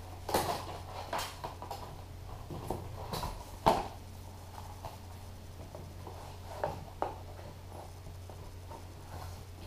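Boxes being handled: a scatter of light, irregular knocks and clicks, the loudest about three and a half seconds in, over a steady low hum.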